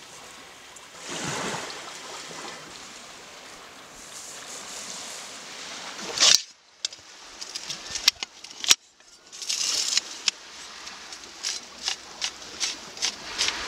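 Small waves washing on the beach, with one swell about a second in. The wash stops abruptly about six seconds in, and camping gear is handled after that: a tool drawn from a hard plastic sheath on a backpack, then a folding shovel unfolded, giving a string of sharp clicks and scrapes.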